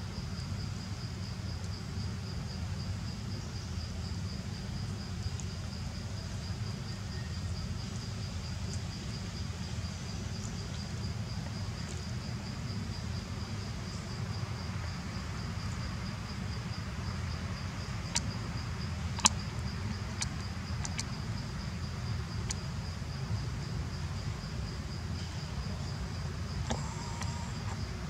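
An insect's steady, high-pitched trill, pulsing evenly, over a low steady rumble. A few sharp clicks come about eighteen to twenty-one seconds in.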